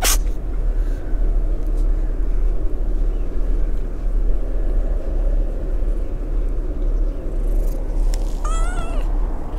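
A brown tabby kitten gives one short meow near the end, over a steady low rumble.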